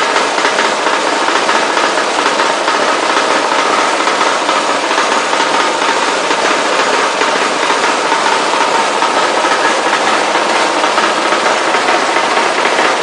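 Sauce-sachet pasteurization machine running, a steady mechanical noise with a faint hum of a couple of steady tones.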